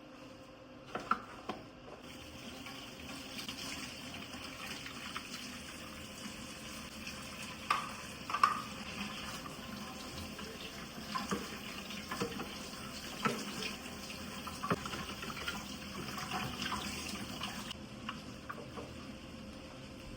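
Water running from a kitchen tap into a sink, starting about two seconds in and stopping near the end, with scattered sharp clinks and knocks.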